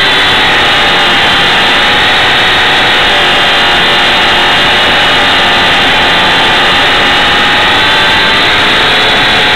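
Electric motor and propeller of a micro RC plane, a T-28 Trojan ultra-micro, running steadily in flight with airflow noise, heard through a keyfob camera mounted on the plane. Its several steady whining tones drift slightly in pitch.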